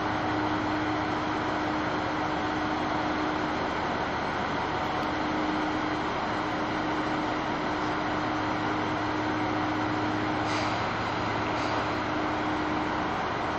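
KTR8000 diesel railcar idling at a station platform: a steady engine drone with a constant hum. Two short hisses come about a second apart near the end.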